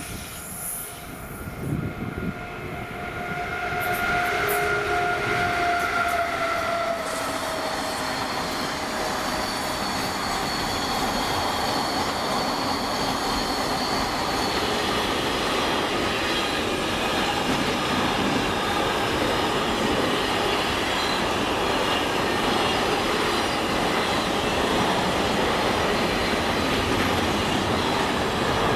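Direct Rail Services Class 88 locomotive passing with a whine that falls in pitch, followed by a long steady rumble of intermodal freight wagons running over the rails with high wheel squeal.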